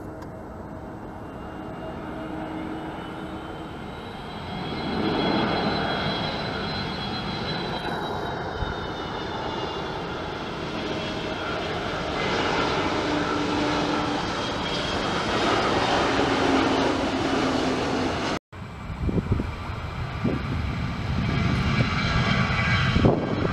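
Airbus A320neo jet engines running, getting louder, with a high whine that rises and then falls in pitch early on. After a sudden break near the end, wind gusts buffet the microphone over the engine noise.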